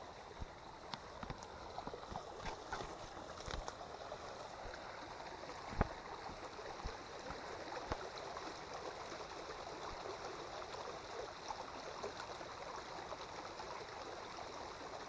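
Faint steady rush of a small irrigation channel's flowing water, with scattered light crackles of footsteps on leaf litter in the first few seconds and a single knock about six seconds in.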